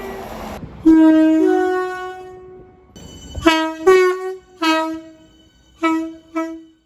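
Two-tone train horns: a long blast starting sharply about a second in, then five short toots in the second half, the second on the higher note.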